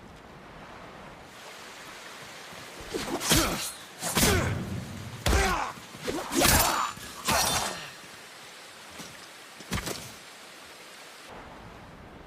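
Sword combat sounds: a quick run of about five blade swishes and strikes with gliding, ringing tails, then one smaller hit a few seconds later.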